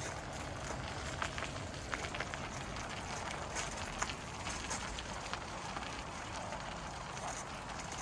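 Bicycle tyres rolling over icy, crusted snow: a steady crunching crackle with scattered sharp clicks, the sharpest about halfway through.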